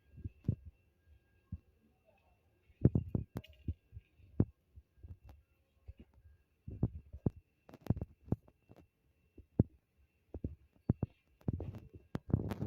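A series of irregular dull knocks and taps over a faint steady hum, with a denser run of knocking and rustling near the end.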